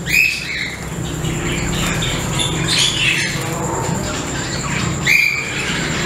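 Caged small birds chirping: three short calls spaced a couple of seconds apart, over a steady low hum.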